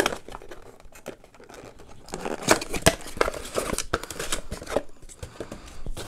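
Cardboard box and paper packaging crinkling and rustling as it is handled and opened, with many small clicks and light knocks, busiest from about two seconds in.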